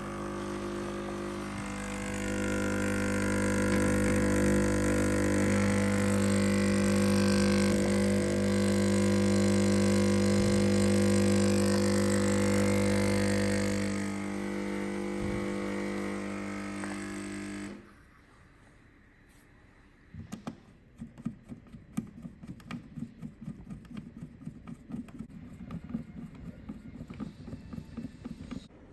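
Sunbeam EM4300 espresso machine's pump buzzing steadily while it brews, stopping abruptly about 18 seconds in. Faint irregular ticks and clicks follow.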